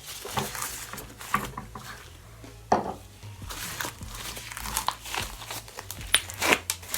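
Fishbowl slime (clear slime packed with wax polymer beads) squished by gloved hands: irregular crackling and crunching, with a few sharper pops.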